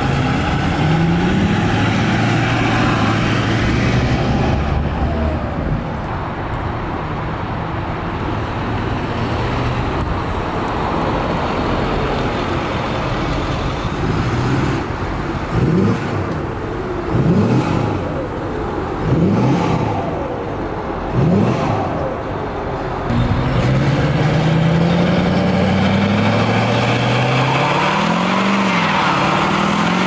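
2008 Ford F-350's 6.4L Powerstroke V8 diesel with its DPF deleted, running steadily, then revved in four quick blips about two seconds apart. From about two-thirds of the way in it is held at higher revs, louder, with the pitch rising and falling in swells near the end.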